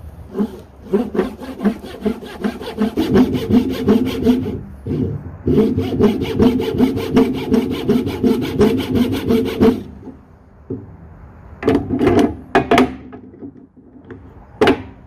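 Japanese dozuki saw cutting through hard ash in quick, even strokes, about three a second, in two runs with a short pause between. Then a few separate knocks near the end as the saw is laid down and the vise handled.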